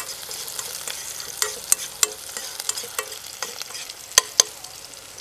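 Chopped shallots and garlic sizzling in coconut oil with mustard seeds and a green chilli, stirred around the pan with a spatula. There is a steady frying hiss with scattered sharp ticks, the two loudest close together about four seconds in.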